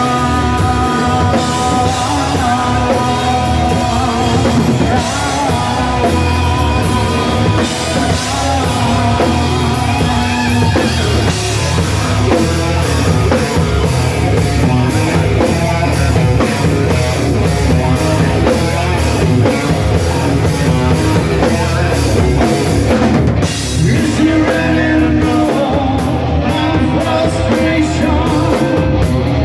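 Rock band playing, with electric guitar, bass and drum kit, and a singing voice.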